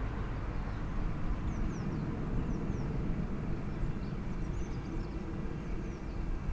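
Outdoor background sound: a steady low rumble, with a few faint, short high chirps of small birds now and then.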